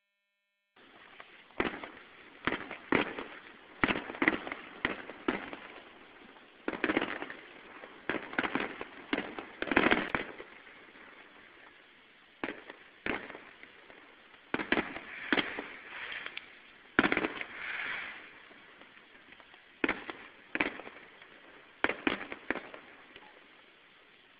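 Aerial fireworks shells exploding in irregular clusters of sharp bangs, at times several a second. Each bang has an echoing tail. The bangs begin after about a second of silence.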